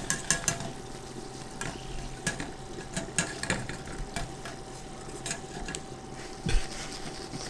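Hot oil sizzling and crackling in a steel kadai under a wire skimmer of freshly fried tube-shaped appalam (papad). The pops are quick and close together at first, then thin out, and there is a single thump about six and a half seconds in.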